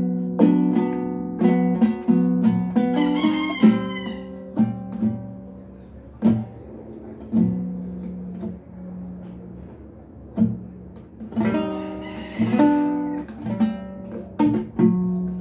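Guitar being played by hand: plucked notes and strums in an uneven, halting pattern, thinning out to a quieter stretch in the middle. Twice a brief wavering high sound rises over the strings.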